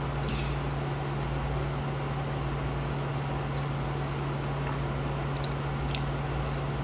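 Steady low hum with hiss, as from a fan or air conditioner running. A few faint, short high squeaks come just after the start and twice more around five to six seconds in.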